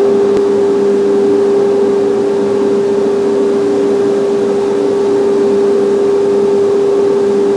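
Shop dust collector blower running steadily, drawing air through open blast gates: a loud, constant hum with a strong steady tone over a rushing air noise.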